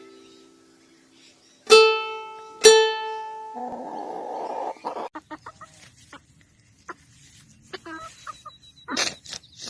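Two loud plucked ukulele notes ring out and fade, followed by a short hiss, then scattered clicks and scuffs with a brief chicken call near the end.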